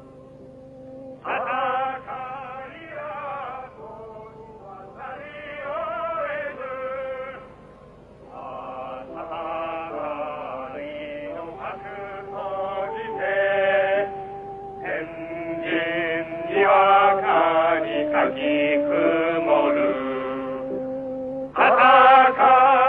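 A group of voices singing a sad song together, in phrases with short breaks, louder near the end.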